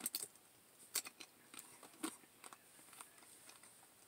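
A person chewing tortilla chip scoops loaded with chili: faint, irregular crunches and mouth clicks.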